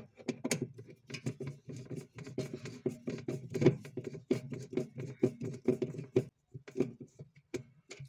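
Screwdriver turning screws into the evaporator bracket inside a fridge freezer: a run of irregular clicks and scrapes of metal on metal and plastic that stops about six seconds in, followed by a few single ticks.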